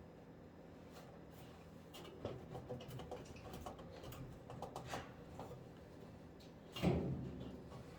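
Scattered light clicks and small knocks over a faint steady hum, with one louder knock about seven seconds in.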